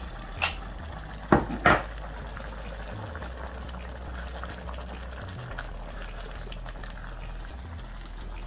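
Dal simmering and bubbling in an open pressure-cooker pot while a wooden spatula stirs it. A few sharp knocks sound in the first two seconds.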